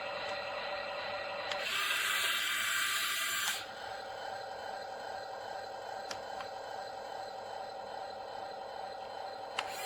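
Small electric motors and gearboxes of a toy RC wheel loader whirring steadily. About two seconds in they run louder and higher for a couple of seconds, then drop back to the steady whir. There are a few light clicks.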